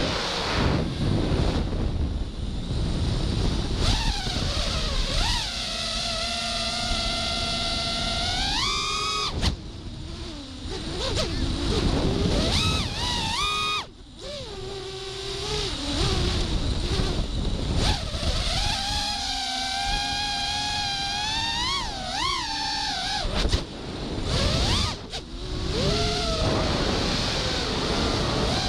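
Five-inch FPV quadcopter's brushless motors (Emax RS2205 2300kv on HQ 5-inch props) whining, their pitch sweeping up and down with the throttle, over a rush of wind and propwash. The whine dips sharply about ten and fourteen seconds in as the throttle is chopped.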